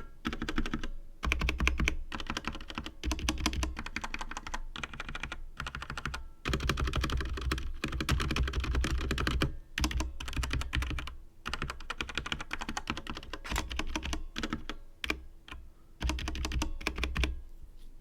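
Typing on a Tecware Phantom mechanical keyboard: rapid runs of key clicks and key bottoming-out with brief pauses between bursts, stopping shortly before the end.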